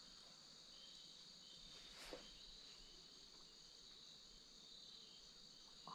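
Near silence: a faint steady high-pitched hum of outdoor background, with one soft click about two seconds in.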